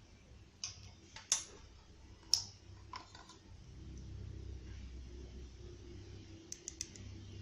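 Laboratory glassware being handled: a handful of sharp clicks and light taps, such as a dropper bottle and glass test tubes knocking against each other and the rack, with a quick run of three ticks near the end.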